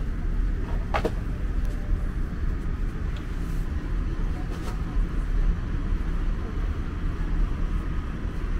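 Steady low rumble of an Airbus A350 passenger cabin's ambient noise, with a short faint rising squeak about a second in.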